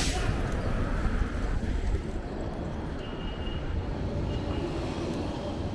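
Road traffic noise with a steady low rumble of wind on the microphone while riding along a city street, easing slightly about two seconds in.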